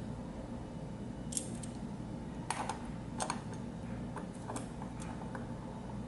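Light clicks and taps of a metal airbrush gun being handled and fitted onto a handheld mini air compressor, about eight scattered, the sharpest a little before the middle.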